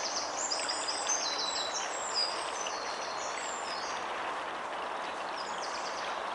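Shallow woodland stream running over stones, a steady rushing hiss. A small bird sings quick, high chirps over the first two seconds or so and again briefly near the end.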